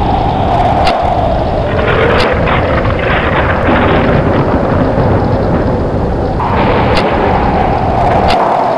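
Thunderstorm: a continuous heavy rumble of thunder and storm noise, with four sharp cracks, about a second in, near two seconds, and twice near the end.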